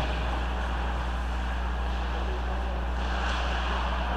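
Steady low hum under an even background noise, with no distinct knocks or voices.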